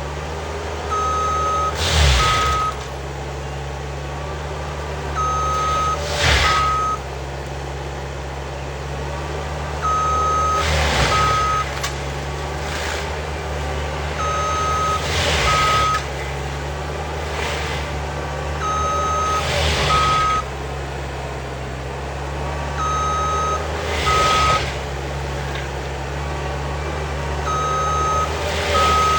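Wacker Neuson ST45 skid steer engine running steadily while its backup alarm beeps in pairs, about every four and a half seconds. A short noisy surge comes roughly every four seconds.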